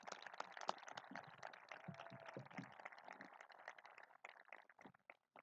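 Faint applause: many separate quick claps that thin out and stop near the end.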